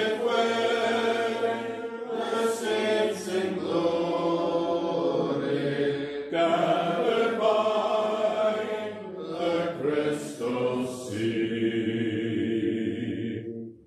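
Congregation singing a hymn unaccompanied, with long held notes, breaking off briefly just at the end between lines.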